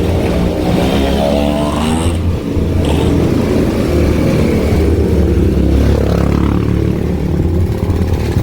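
Motor vehicle engines running close by in street traffic, a steady low rumble. One engine's pitch rises about a second in as it accelerates.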